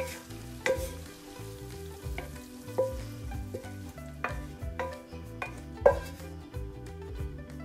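Wooden spatula scraping and knocking against a nonstick pan as stir-fried lotus root and ground meat slide onto a ceramic plate: irregular sharp clicks, the loudest about six seconds in. Soft background music runs underneath.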